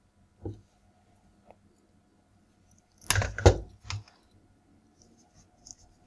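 Red hookup wire being worked with a small hand wire tool, such as cutters or a stripper: one sharp click about half a second in, then a burst of sharp crunching clicks about three to four seconds in as the wire is cut or stripped.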